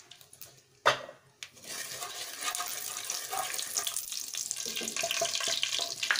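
Fresh cooking oil added to a hot non-stick kadai and stirred with a wooden spatula: a sharp knock about a second in, then a steady crackling sizzle of the heating oil.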